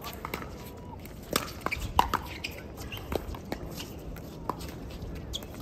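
Pickleball paddles hitting a plastic pickleball: a series of sharp pops at irregular intervals during a rally, the loudest about a second and two seconds in.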